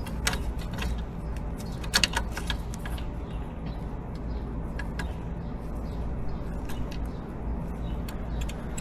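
A few light metallic clicks and clinks from hands and tools working on a motorcycle's gear shift linkage, over a steady low hum.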